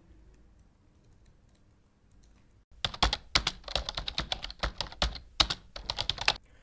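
Computer keyboard being typed on: after a quiet start, a fast run of keystroke clicks begins about three seconds in and carries on until just before the end.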